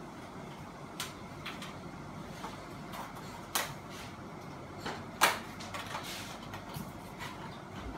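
Scattered sharp clicks and knocks of hard objects being handled, the loudest about five seconds in, over a steady low background noise.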